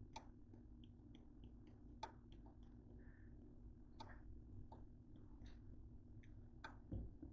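Faint clicks and taps of a plastic cinnamon shaker being shaken over toast, with a sharper tap every second or two, over a low steady hum.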